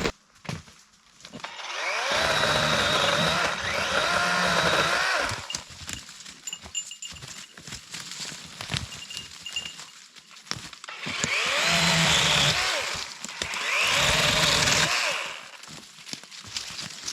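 Battery-powered electric chainsaw cutting wood in three bursts, its motor pitch sagging and rising as the chain bites under load.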